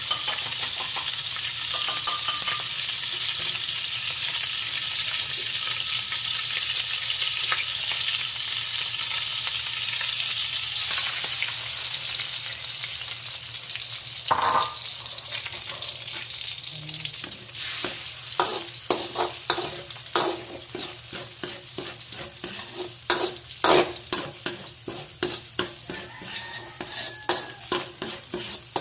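Hot oil sizzling in a wok, a steady hiss that fades away over the first half. From a little past halfway a spatula scrapes and knocks against the wok in quick, irregular strokes as beaten egg is scrambled in the oil.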